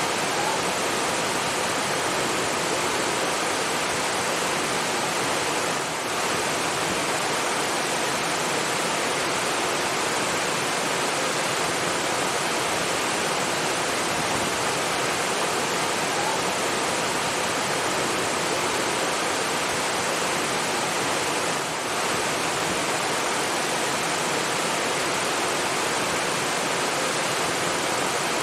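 Rushing water, steady and continuous, like a waterfall or fast stream, with two brief slight dips in level.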